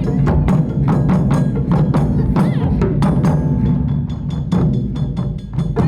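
Japanese taiko drums played by an ensemble in a fast, driving rhythm, about six sharp stick strikes a second over a deep, constant drum boom.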